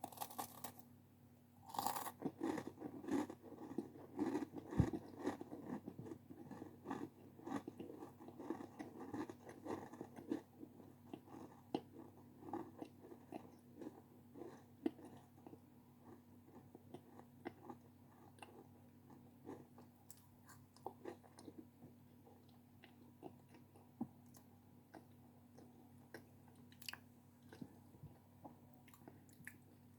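Close-up ASMR eating sounds: a crunchy snack bitten at the start and again about two seconds in, then crunched and chewed. The crunching is dense for the first ten seconds or so and thins to sparser, softer chewing afterwards.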